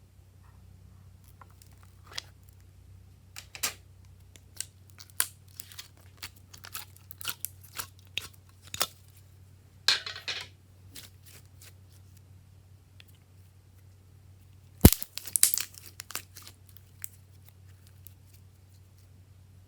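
Slime being handled and mixed: scattered sticky clicks and crackles, a crinkling rustle about ten seconds in, and a sharp snap followed by a run of crackling near fifteen seconds, over a faint steady low hum.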